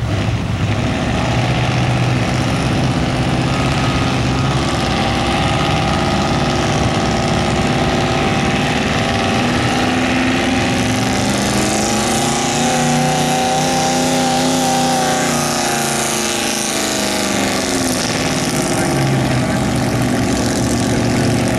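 Pickup truck engine running hard under load as it drags a weight-transfer pulling sled. The engine note climbs about halfway through, holds for several seconds, then falls back.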